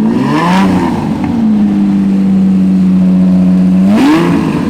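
Lamborghini Diablo V12 running on a loud, non-stock exhaust, just started for the first time after its powertrain was rebuilt. It holds a steady idle and is blipped twice, briefly just after the start and again about four seconds in, each time dropping back to idle.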